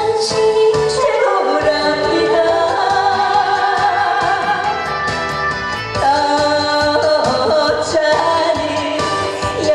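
A woman singing a Korean trot song into a handheld microphone over instrumental accompaniment with a steady beat.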